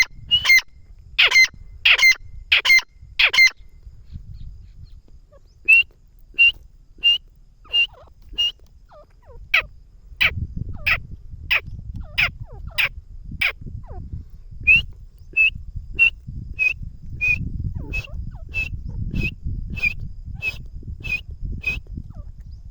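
Grey francolin calling: runs of short, sharp, high notes, about one and a half a second, broken by two short pauses.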